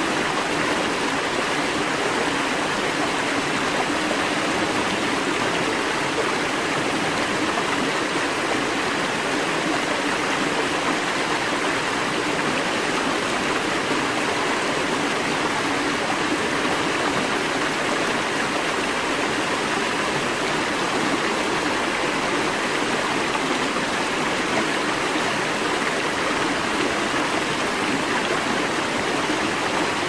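Running water, like a stream, making a steady, even rush with no change in level.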